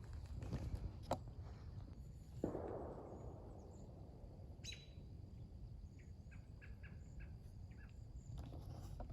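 Quiet woodland with faint bird chirps, a quick run of short chirps coming about six to eight seconds in, over a steady low rumble. A sudden noise about two and a half seconds in fades away over a second or so.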